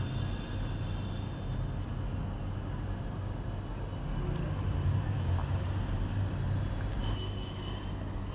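Handheld masher rubbing and scraping custard apple pulp against a stainless steel mesh strainer, separating the seeds, heard as a steady low rumbling rub.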